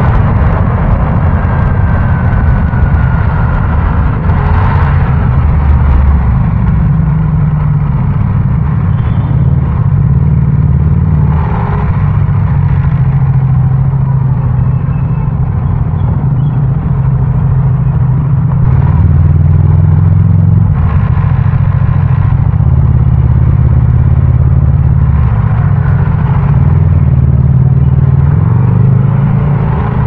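Motorcycle engine running on a city ride, its low note stepping up and settling back several times as the throttle and speed change, with traffic noise around it.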